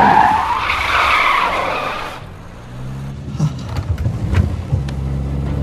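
Classic Mini's tyres squealing in a skid, dying away about two seconds in, then the car's engine running more quietly with a few sharp clicks and knocks.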